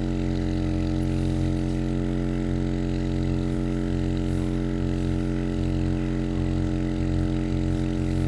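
A small electric motor running steadily with an even, unbroken low hum.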